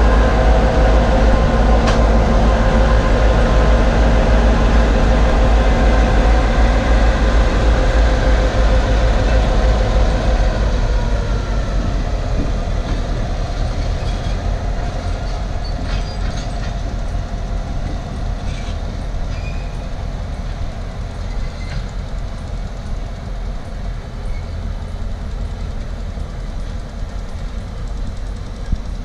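Queensland Rail diesel locomotives running past close by, a loud low engine rumble with steady tones. About ten seconds in it fades to a quieter rumble as they draw away, with a few faint clicks later on.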